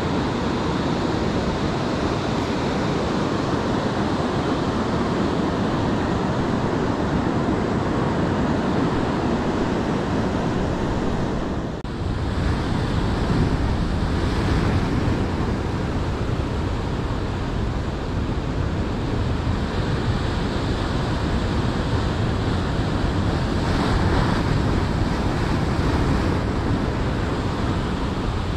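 Ocean surf washing continuously onto the beach, with wind buffeting the microphone; there is a brief dip about twelve seconds in.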